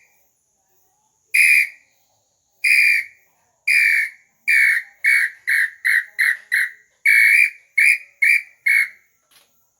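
Hand-made bird-call whistle (pio) blown in a series of clear whistle notes, each dipping slightly in pitch: three spaced single notes, then a quick run of short notes, one longer note and three more. The call is not yet finished and, as its maker says, not yet perfect.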